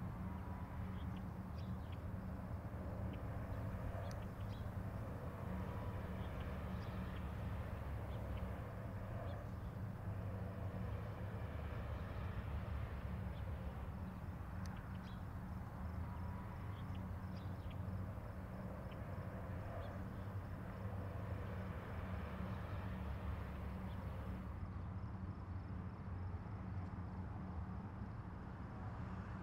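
Outdoor ambience: a steady low hum with faint, scattered chirps above it.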